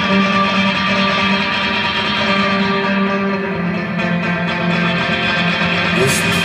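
Live electric guitar playing slow, sustained notes that ring over one another. A man's voice begins singing near the end.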